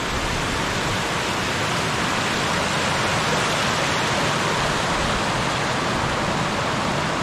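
Steady rushing of running water at an even level.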